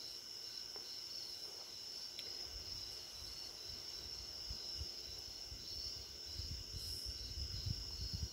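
Night insects chirping steadily: a continuous high trill with a faster pulsing chirp just beneath it. Low rumbles come and go in the second half.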